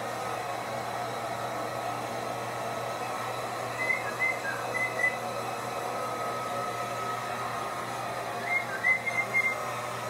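Handheld hair dryer running steadily while blow-drying a wet white-bellied caique. Over it come short high whistled chirps in two quick runs of four or five notes each, the first about four seconds in and the second near the end.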